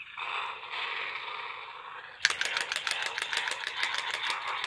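Shake N Go Lightning McQueen toy car being shaken by hand: its small speaker plays a steady electronic engine-revving sound effect, joined about two seconds in by a fast, regular clicking rattle.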